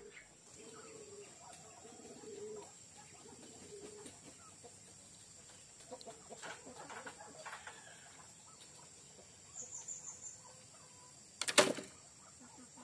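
Chickens clucking faintly in the background, with a faint steady high tone under them. A single sharp knock near the end is the loudest sound.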